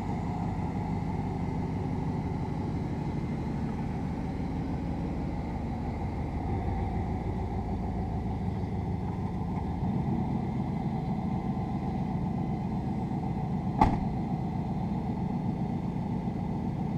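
A vehicle engine running steadily, with a single sharp click about 14 seconds in.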